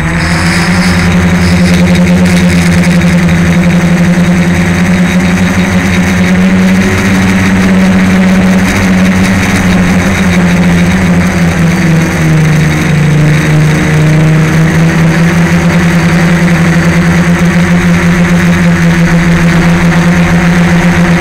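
Electric motors and propellers of a DJI Flame Wheel F450 quadcopter, heard through its onboard camera, giving a loud steady buzzing hum in flight. The pitch dips slightly about twelve seconds in and comes back up as the throttle changes.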